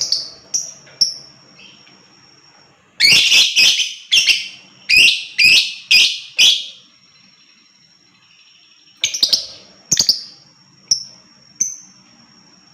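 Lovebird calling with sharp, high chirps: a few at the start, a run of about eight loud, harsh calls, roughly two a second, from about three to seven seconds in, then more chirps near the end. A faint steady high tone runs underneath.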